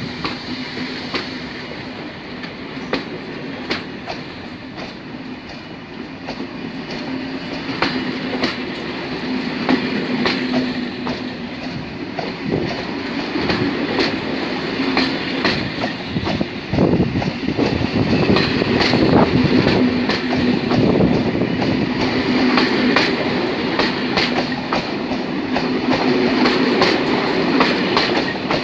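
Corail passenger train hauled by a BB 22200 electric locomotive passing by, wheels clicking over the rail joints over a steady hum and rumble. It grows louder through the first two thirds and stays loud.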